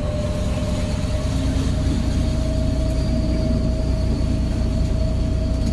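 Boat engine running steadily with a constant low hum and a faint steady whine.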